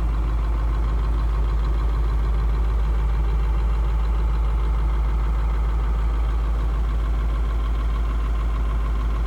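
1982 Blue Bird Wanderlodge motor coach's engine idling steadily while still cold.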